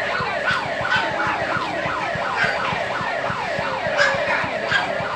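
Emergency-vehicle siren wailing in a fast yelp, each note falling in pitch, about three sweeps a second, with a regular low pulsing underneath.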